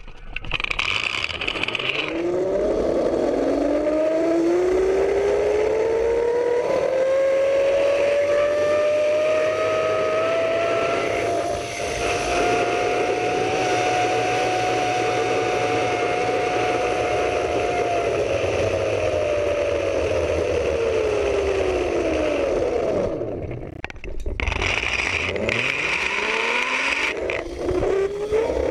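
Zip line trolley pulleys running along the steel cable: a whine that rises in pitch as the rider picks up speed, holds steady, then falls away as the trolley slows. A second run starts near the end with the whine rising again, over a steady rush of wind.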